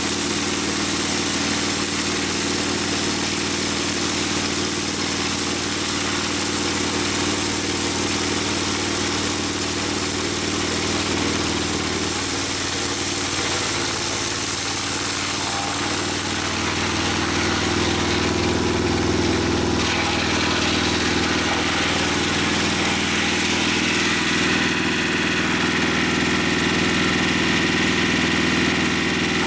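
A Mobile Dimension sawmill's engine running steadily, its pitch shifting about halfway through as the load changes.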